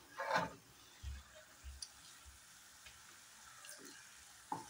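Mostly quiet kitchen sounds: a brief scrape of a steel ladle in a steel kadhai of frying tomato masala, then a couple of soft low knocks and faint ticks as utensils are handled.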